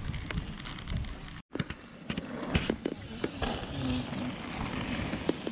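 Downhill mountain bike rolling over a dirt trail: tyre noise and scattered knocks and rattles from the bike, with wind noise on the microphone growing in the second half. The sound cuts out abruptly for an instant about a second and a half in.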